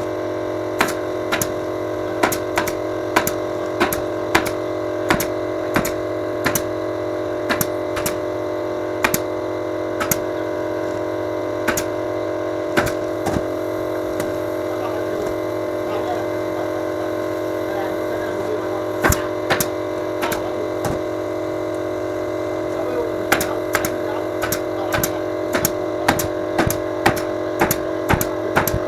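Upholstery staple gun firing staples into a motorcycle seat cover, sharp shots at about one to two a second with a pause in the middle. A steady hum runs underneath.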